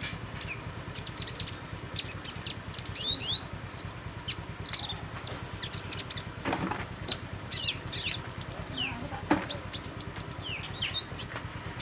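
Songbirds chirping and twittering in a rapid run of short, high notes, many of them quick downward slides, with brief pauses between bursts.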